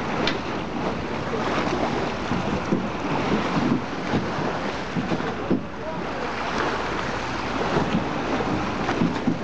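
A wooden motor launch's engine running as it pulls away from the dock, mixed with water lapping and splashing and wind buffeting the microphone.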